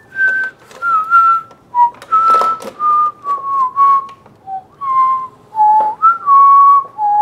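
A person whistling a slow tune in single clear notes with short breaks between phrases. Under it are a few sharp clicks and knocks as a pod is loaded into a Keurig single-serve coffee maker and its brew-size button is pressed.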